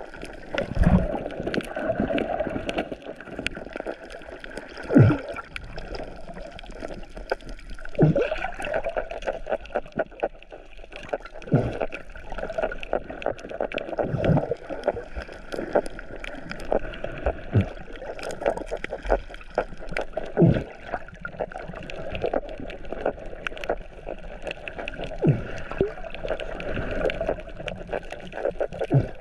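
Underwater sound picked up by a submerged camera: a steady, muffled watery hiss with gurgling, and a dull thud every few seconds.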